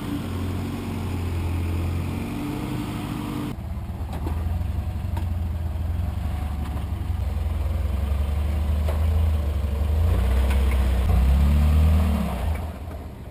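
Engine of a 1985 Toyota pickup running low and steady while rock crawling slowly over boulders under load, revving up and easing off a couple of times near the end.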